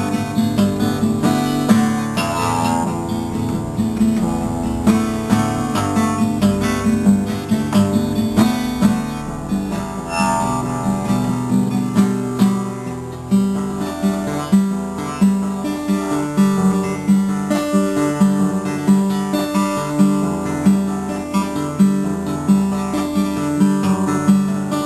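Solo acoustic guitar playing an instrumental piece, plucked notes over a strong bass line, settling into a regularly repeating figure about halfway through.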